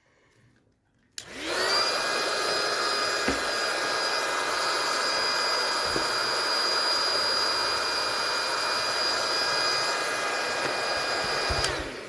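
Electric balloon pump switching on about a second in. It spins up to a steady whining run while a latex balloon fills, then winds down and stops near the end.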